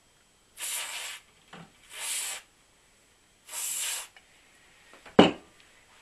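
Aerosol carburettor cleaner sprayed in three short hissing bursts onto the sticky shaft of a dehumidifier fan motor, to clean it. A single sharp knock follows near the end.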